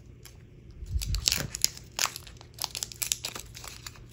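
Foil booster-pack wrapper crinkling and tearing as it is forced open with scissors and fingers: a string of sharp crackles, bunched about a second in and again from two to three seconds in.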